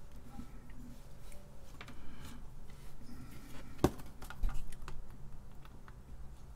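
Small clicks and taps of a printed circuit board and small components being handled and set down on a workbench, with one sharper click about four seconds in.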